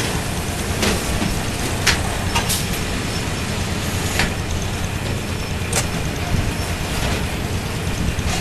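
Sandbag-unloading conveyor machine running: a steady low engine hum with a few scattered sharp knocks.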